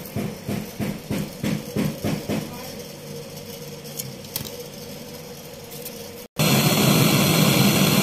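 A gas brazing torch's flame burning with a loud, steady hiss from about six seconds in. Before it come a few seconds of short rhythmic hand-tool strokes, about three a second, over a low hum.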